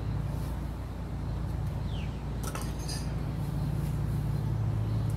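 Metal screwdriver bits and tools clinking lightly as they are picked up and handled, a few short clicks, the loudest about halfway through, over a steady low background hum.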